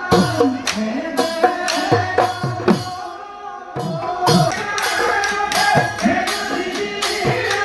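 Folk music with drum strokes that drop in pitch, jingling percussion and a melody line. It thins out briefly about three seconds in, then picks up again.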